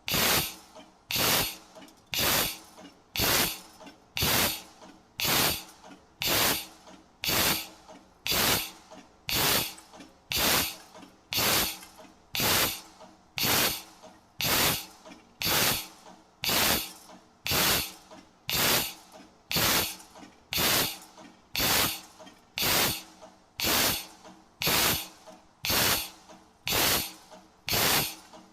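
Automatic CNC hole-punching machine working through a tube, cycling steadily at about one stroke every second and a half, each stroke sharp and quickly fading.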